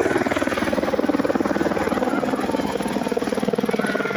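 Helicopter running steadily, its rotor beating in a fast, even pulse.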